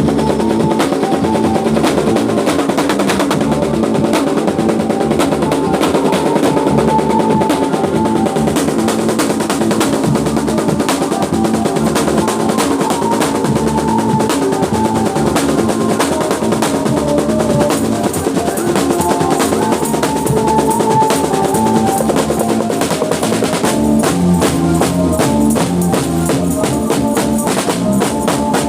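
Live band playing an instrumental piece: rapid, busy drumming with snare rolls and bass drum under a sustained melody line.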